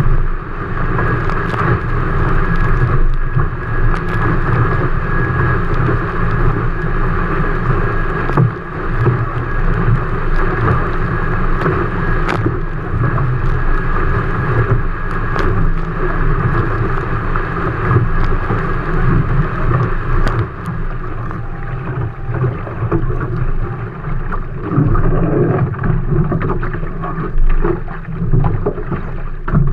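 A-Class catamaran under sail at speed: water rushing and hissing along the hull, with wind buffeting the microphone and scattered sharp ticks of spray. The rush eases somewhat about two-thirds of the way through as the boat settles and slows.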